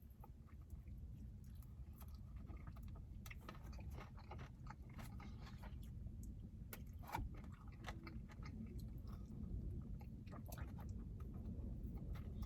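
Close-miked chewing and biting of sticky glazed fried chicken wings: irregular wet crackles and crunches, with a steady low rumble underneath.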